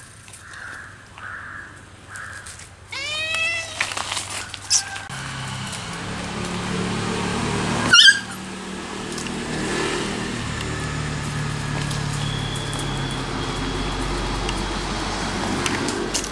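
Domestic cat giving a drawn-out meow that rises and falls, about three seconds in, as a warning to a puppy. A sudden short, sharp cry about halfway through is the loudest sound. A steady low hum runs underneath the second half.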